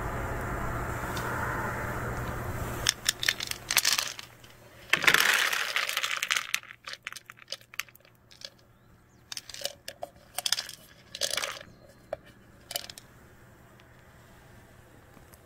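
Dry pet kibble rattling and clicking against plastic as a plastic container and its lid are handled over a clear plastic tray: a run of sharp clicks and crinkles from about three seconds in, loudest around five seconds, thinning out near the end. Before that, a steady background rumble.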